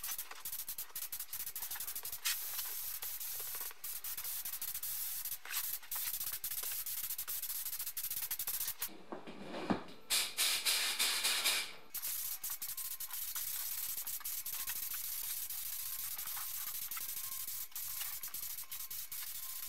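Compressed-air gravity-feed paint spray gun hissing as it sprays red base coat onto brake calipers. The hiss stops briefly about nine seconds in, comes back louder for a couple of seconds, then runs on steadily.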